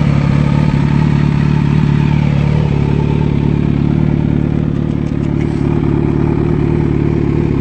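Kawasaki Z900's 948 cc inline-four engine idling steadily through its exhaust.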